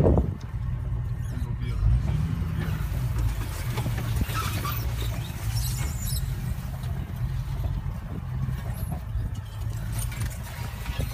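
Engine of an open safari game-drive vehicle running steadily with a low, even hum.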